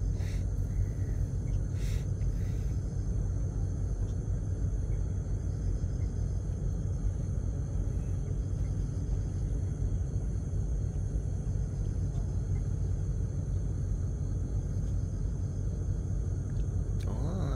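Small boat engine running steadily: a low, even rumble with a constant hum.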